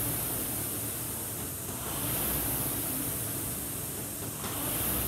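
Concept2 rowing machine's air-resistance flywheel whooshing, swelling with each drive stroke about every two and a half seconds at a stroke rate of 24.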